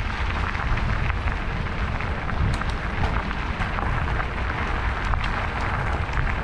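Wind buffeting an action camera's microphone, with the rolling rumble and rattle of a mountain bike on a rough trail.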